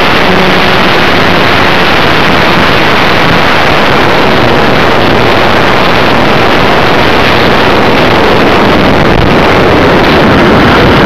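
Steady, loud, distorted rush of wind and motor-and-propeller noise from a radio-controlled model plane, heard on board, as it comes in low to land on a grass field. It grows a little louder near the end.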